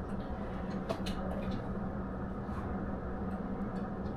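Steady low background hum with a constant tone, broken by a few faint clicks about a second in. No gunshots.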